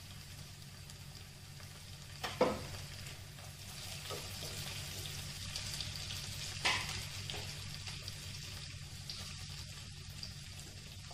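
Chopped onions and green chilli frying in butter and oil in a pot, with a steady sizzle as they are sautéed to a light pink. A wooden spatula stirs them and knocks against the pot twice, about two and a half seconds in and again near seven seconds.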